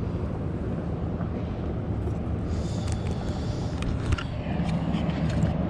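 Steady rumble of road traffic, with a few short light clicks and rattles about halfway through.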